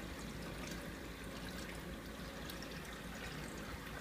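Steady trickle and splash of water circulating through a 90-gallon reef aquarium, over a low steady hum.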